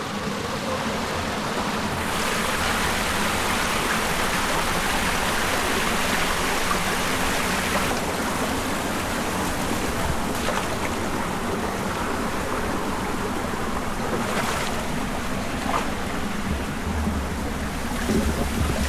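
Stream water rushing over rocks, a steady even rush.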